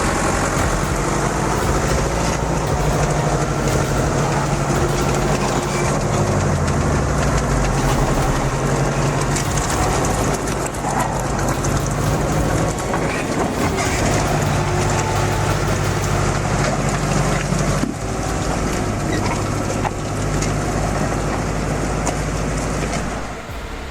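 A heavy vehicle engine running hard under load, with a steady low drone and clatter over it. The engine pitch dips once about six seconds in.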